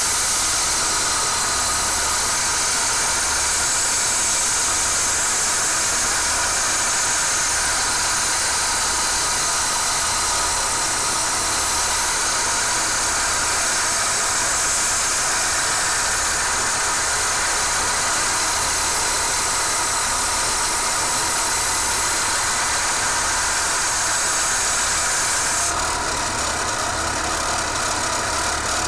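Belt grinder running with the steel blade of a pair of vintage hedge clippers held against the belt to sharpen it, a loud steady grinding hiss. Near the end the blade comes off the belt and the hiss drops, leaving the machine running alone.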